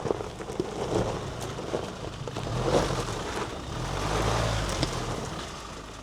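Rely R8 pickup crawling on a dirt trail in four-wheel-drive low range with both diff locks engaged: the engine pulls under load, swelling twice, with scattered clicks and knocks over a steady rumble.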